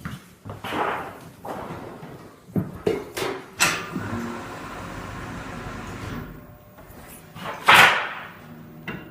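Sheet metal being worked into roof flashing: a series of clanks and bangs, the loudest near the end, with a steady low hum for a couple of seconds in the middle.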